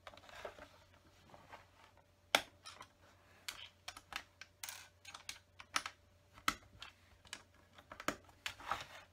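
Small plastic LEGO pieces being handled and pressed onto a LEGO baseplate: irregular sharp clicks and taps, the loudest about two seconds in.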